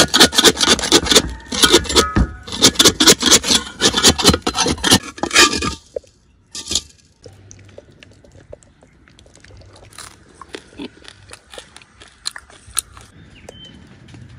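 Metal spatula scraping and clanking against a steel wok as rice is stir-fried, several quick strokes a second. After about six seconds it stops, leaving only scattered faint ticks and clinks.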